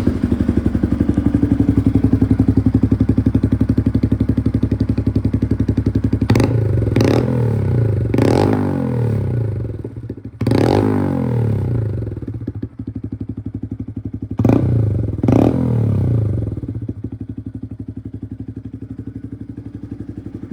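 Honda Grom's single-cylinder engine through a Vance and Hines Upsweep slip-on exhaust, idling just after starting, with six quick throttle blips that rise and fall back to idle, the last two a second apart near the middle. The exhaust is pretty loud.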